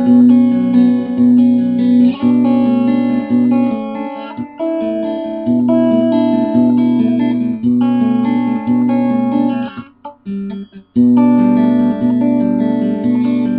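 Guitar played in an improvised run of held notes and chords that change every second or two. The playing breaks off briefly about four and a half seconds in and nearly stops for about a second near ten seconds before resuming.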